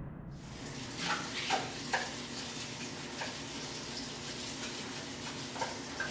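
Water running steadily into a kitchen sink, with a few light clinks of dishes being handled.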